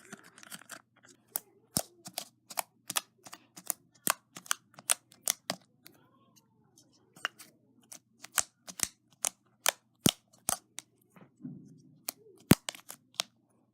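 Homemade slime being squeezed and pressed by hand, giving off a run of sharp popping clicks as trapped air pockets burst, about two or three a second with a sparser patch midway.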